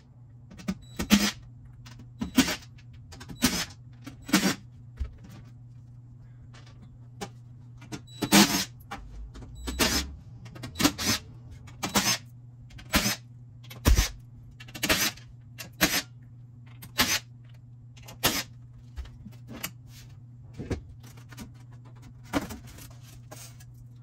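Cordless drill backing out the sheet-metal screws of a dehumidifier's cabinet panels: a string of short whirring bursts, about one a second, over a steady low hum.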